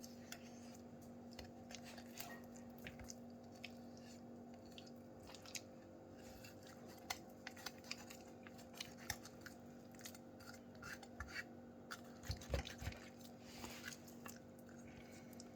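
Knife cutting through raw chicken meat and along the bone: faint, scattered wet cuts and small clicks, a little louder about twelve seconds in, over a steady low hum.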